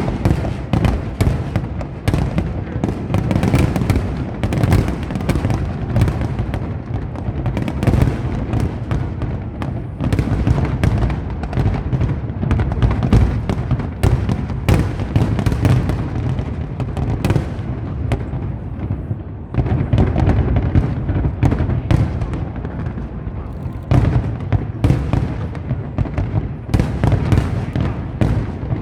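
A fireworks display: shells bursting in rapid, overlapping succession, sharp bangs and crackle over a continuous rumble.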